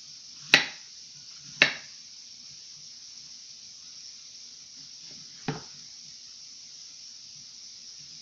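Chef's knife slicing through plantain and striking a wooden cutting board: two sharp knocks about a second apart, then a fainter one about five seconds in, over a faint steady hiss.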